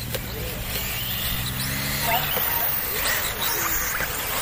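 Radio-controlled off-road buggies racing on a dirt track, their motors whining briefly up and down in pitch. A steady low hum underneath stops about halfway through.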